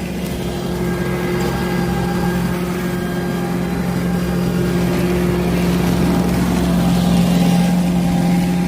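An engine running steadily at constant speed, with a steady hum and a slight swell in loudness late on.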